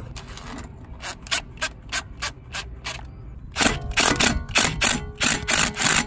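Hand ratchet wrench clicking in a steady rhythm, about three clicks a second, tightening a fastener on the front wheel hub. About three and a half seconds in, the clicks become louder.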